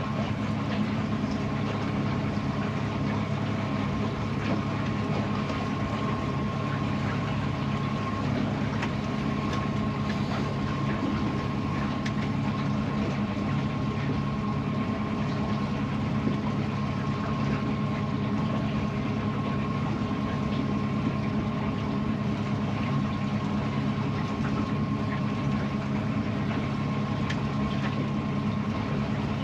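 Boat motor running steadily at low speed, with a faint steady whine above its hum.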